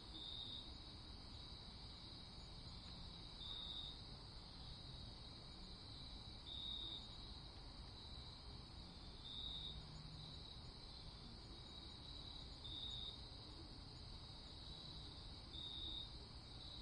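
Faint, steady, high-pitched insect-like trill that swells briefly about every three seconds, over a low background hiss.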